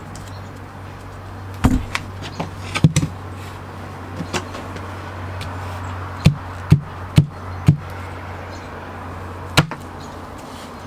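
6-pound sledgehammer striking a thickly folded wad of paper: scattered knocks in the first few seconds, then four quick blows about half a second apart past the middle and one more near the end, over a steady low hum.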